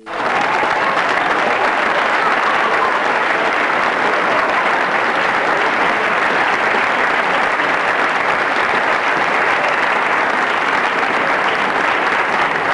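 Loud, dense applause that starts suddenly and holds steady.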